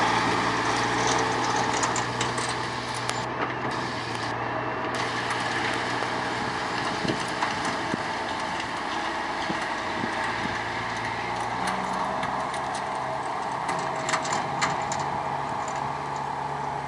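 Diesel engine of a semi truck running as it pulls a grain trailer over a field, a little quieter after the first few seconds.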